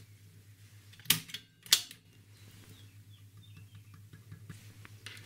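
Crackling from a TeKaDe W367K tube radio's speaker as its volume control is turned: two loud, sharp crackles a little over half a second apart, then fainter scattered crackles, over a steady low hum. The crackling is the sign of a faulty volume control, with the sound coming and going intermittently.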